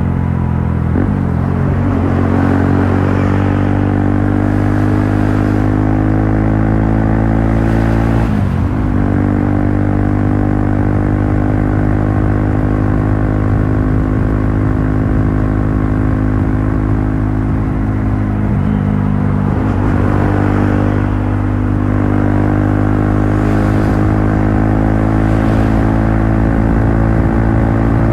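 Honda CBR150R motorcycle's single-cylinder four-stroke engine running at a steady speed, its pitch dipping briefly and recovering a few times.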